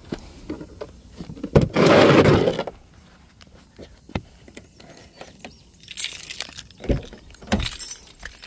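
Handling noises: a sharp click, then a loud scraping rustle lasting about a second, followed by scattered clicks and knocks as the SUV's driver door is opened.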